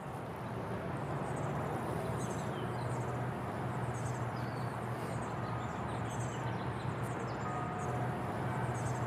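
Outdoor ambience: small birds chirping again and again over a steady low hum. Faint held tones come in about halfway through.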